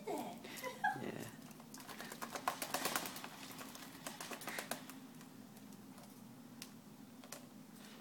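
A lorikeet bathing in a shallow plastic tub, splashing and flicking water with its wings: a rapid patter of small splashes, busiest about two to three seconds in and thinning out after. A couple of short squeaky bird calls in the first second.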